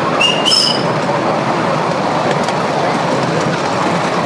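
Miniature railway passenger carriages running along the track: a steady rumble and clatter of small wheels on the rails, with faint clicks and a brief high squeal about half a second in.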